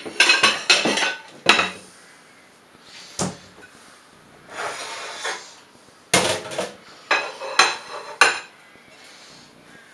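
Cookware clattering on a stainless-steel stovetop: metal pots and a plate knocked and set down in quick clusters of clanks at the start and again a little over halfway through, with a single knock in between.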